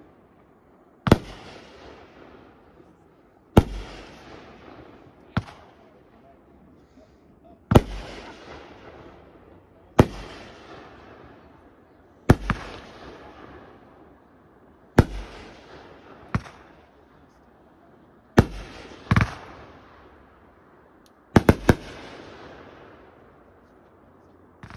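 Aerial fireworks bursting in the sky: a sharp bang every two to three seconds, each fading off over a second or so, with a few quick bangs in a row near the end.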